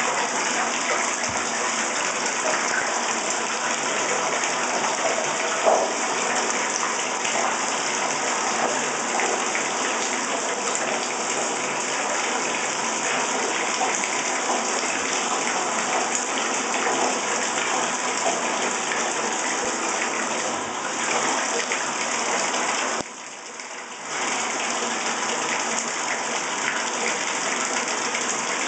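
Water running steadily into a bathtub, a continuous rushing hiss, that drops away briefly for about a second near the end.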